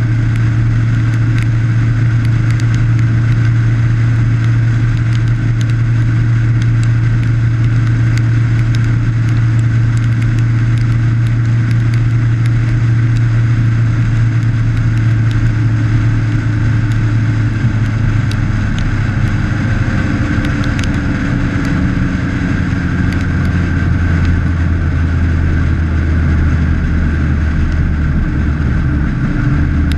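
Motorcycle engine running steadily at cruising speed, with steady wind and road noise. About two-thirds of the way through, the engine's low hum drops to a lower pitch as the bike eases off.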